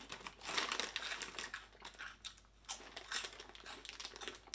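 Foil-lined plastic snack bag crinkling irregularly as a hand rummages in it and handles it, busiest in the first second or two.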